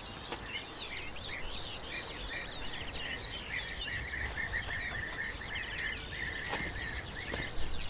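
European bee-eaters calling: many short, overlapping chirps throughout, over a faint steady background hiss.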